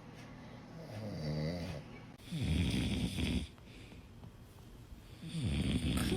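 A man snoring heavily in his sleep: two long, loud snores about three seconds apart, the first starting about two seconds in and the second near the end, with a softer wavering tone just before the first.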